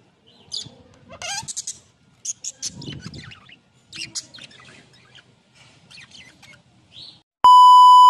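Budgerigars chirping and chattering in short, scattered calls. Near the end a loud, steady test-tone beep cuts in over them.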